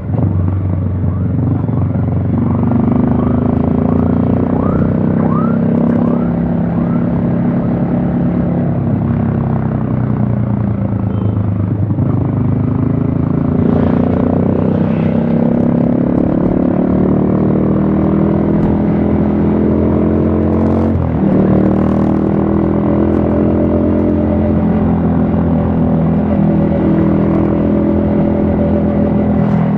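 Yamaha XSR155's single-cylinder engine under way, heard from the rider's helmet. Its pitch rises and falls as the rider accelerates and eases off, with a drop and pick-up about two-thirds of the way through, likely a gear change.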